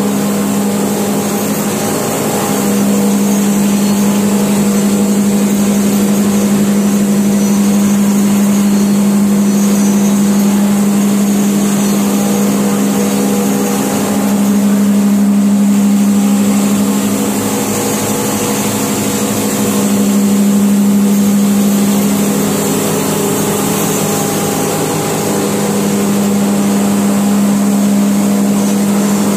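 Industrial masala (spice) pulverizer running, belt-driven by electric motors: a loud, steady hum that swells slightly a couple of times.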